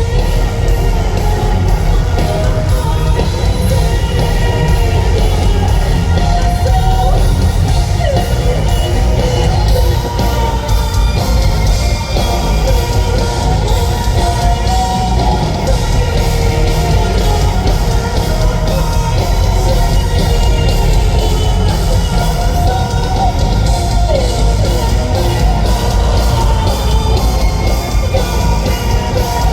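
Loud live heavy rock music from a band, with drums, electric guitar and a singing voice.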